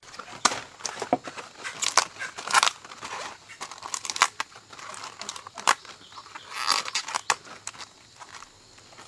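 Irregular rustling and crackling with many sharp clicks, like dry material being handled or trodden on.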